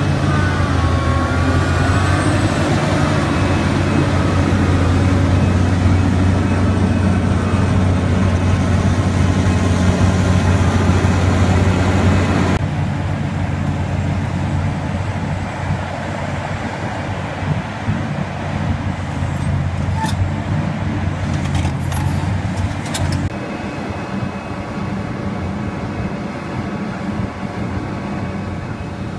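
Large Liebherr crawler excavator's diesel engine running steadily with a deep, even drone, with a wavering squeal in the first few seconds and a few sharp metallic clanks about two-thirds of the way through.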